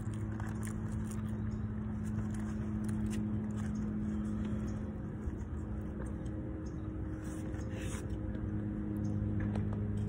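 Steady low hum of an idling engine or motor, with faint clicks and scrapes of a plastic fork in a foam takeout box and chewing.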